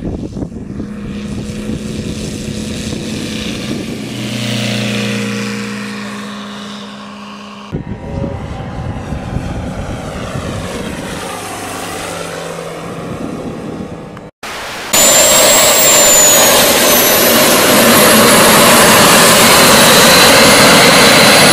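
Propeller engine of a large radio-controlled scale biplane running at power, its pitch rising and falling as it takes off and flies past. About 14 seconds in it cuts to the much louder, high-pitched whine of a large radio-controlled Airbus A380 model's engines.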